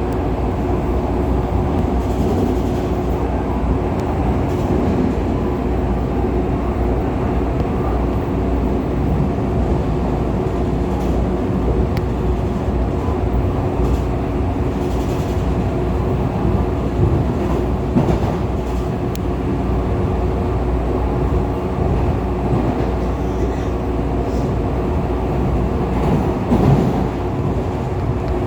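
CPTM Série 2000 electric multiple-unit train running along the line, heard from on board: a steady rumble of wheels on rail with a steady droning tone, which the title calls car 2037 "roncando" (growling), and a few short clicks from the track.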